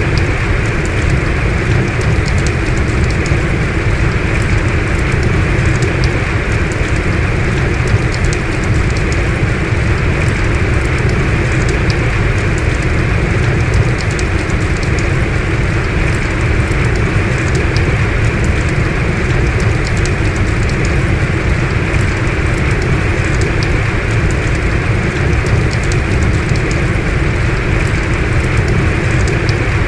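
Heavy rain falling steadily, a dense even hiss with scattered individual drop ticks.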